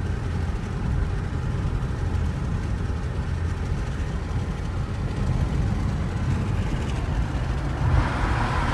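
Steady low road and engine rumble heard from inside a moving car's cabin. Near the end a brighter hiss and a thin steady tone come in.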